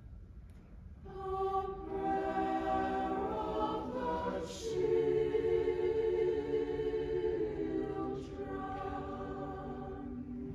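Mixed choir singing slow, sustained chords, resuming after a short rest about a second in. Two sharp sung 's' sounds cut through, and the last chord is held and slowly fades near the end.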